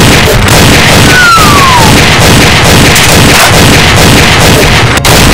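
Loud, unbroken stream of dubbed gunfire and blast sound effects, with a falling whistle a little over a second in.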